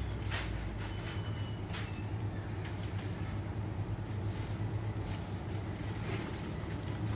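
Steady low hum of shop ambience, typical of refrigerated display cabinets and ventilation, with scattered faint clicks and rustles.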